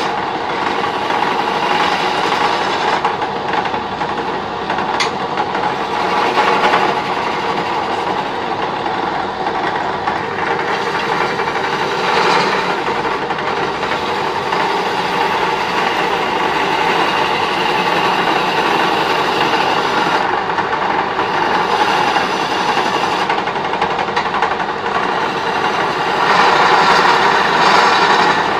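Electric wood lathe running while a hand chisel cuts into a spinning wooden handle blank: a steady machine drone mixed with the rough scraping of the tool on the wood, which swells now and then and grows a little louder near the end.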